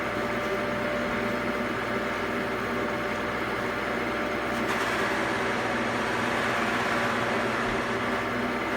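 Buffing machine running steadily, its motor humming as the buffing wheel works the lacquered bass body; a hissier rubbing sound grows about halfway through.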